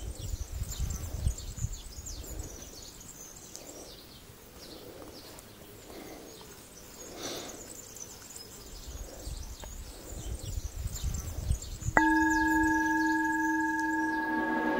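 Faint open-air ambience: a low wind rumble on the microphone with light high chirps. About twelve seconds in, a bell-like chime starts suddenly and holds a steady ringing chord.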